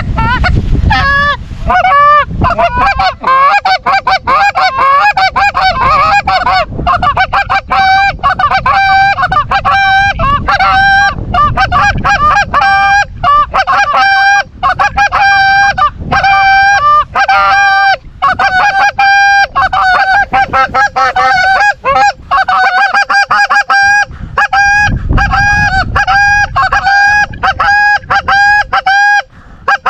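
Rapid, continuous goose honking and clucking, several calls a second, with low rumbling wind noise near the start and again about 25 seconds in.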